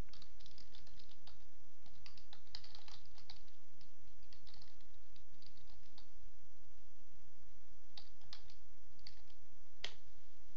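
Computer keyboard keys typed in short bursts while a web address is entered, with one sharper click near the end.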